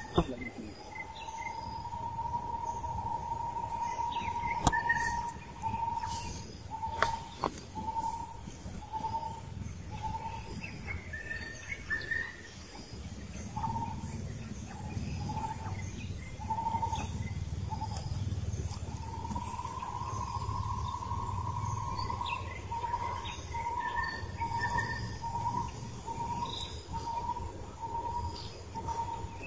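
Birds calling: a clear note held for a few seconds, then repeated as short notes about once a second, with occasional higher chirps. A few sharp clicks early on, and a low rumbling background noise in the second half.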